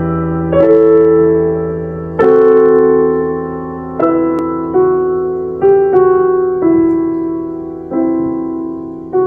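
Piano playing a slow, gentle piece: a new note or chord about every second, each left to ring and fade before the next.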